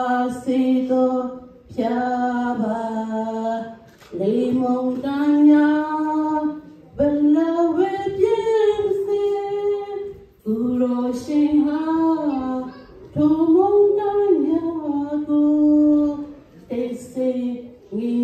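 A woman singing solo and unaccompanied into a microphone, in long held phrases with short breaks between them.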